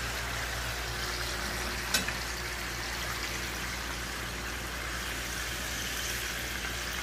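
Chicken pieces deep-frying in a deep pot of hot oil, a steady bubbling sizzle, with a single sharp click about two seconds in.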